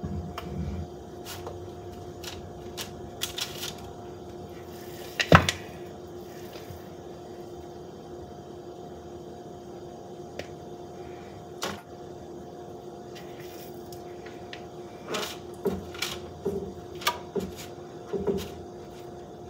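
Scattered knocks and taps of hands and a utensil against a plastic mixing bowl as cookie dough is pinched out and rolled into balls, the loudest knock about five seconds in and a cluster of taps near the end. A steady low hum runs underneath.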